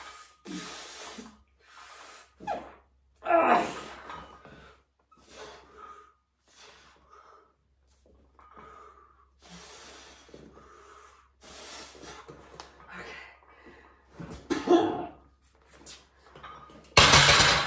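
A man breathing hard and straining through a set of lying barbell triceps extensions: forceful exhales every second or two, a few of them voiced as short grunts. There is a louder rush of noise near the end.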